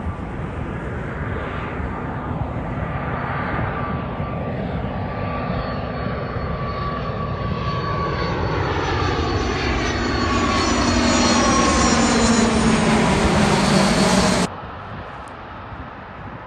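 Gulfstream IV's twin Rolls-Royce Tay turbofans on landing approach, a jet whine with a rushing noise that grows steadily louder as the aircraft comes in low overhead. As it passes, a sweep of falling tones runs through it. The sound cuts off abruptly near the end to a much quieter, distant rush.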